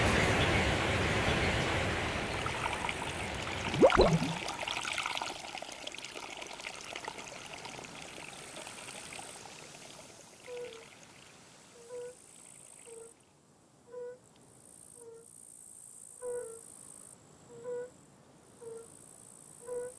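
Water pouring and trickling, fading away over the first few seconds, with one sharp plop about four seconds in. From about ten seconds, short soft pitched blips come roughly once a second.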